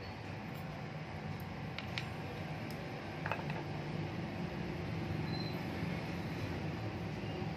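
A few light clicks of a small brass bolster plate being handled and fitted against a knife's wooden handle, over a steady low background hum.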